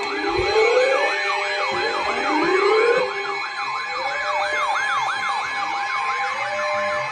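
Several weather alert radios sounding their alarms at once for a flash flood warning: overlapping rapid wailing siren tones, a few slower rising sweeps, and a steady tone underneath.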